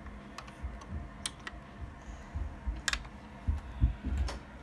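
Scattered light plastic clicks and taps of LEGO pieces being handled on a baseplate, about five in all, with soft low thumps from the hand-held phone being moved, heaviest near the end.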